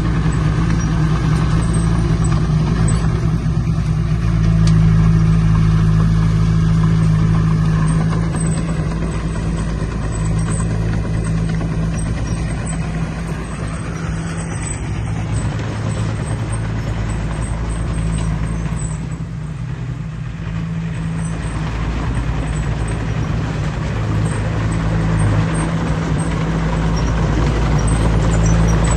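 Diesel engine of heavy earthmoving equipment running steadily with a deep engine drone, easing off briefly about two-thirds through.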